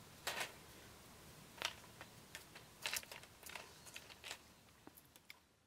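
Scattered faint clicks and crackles at uneven intervals from snails roasting in their shells on a wire grill over charcoal.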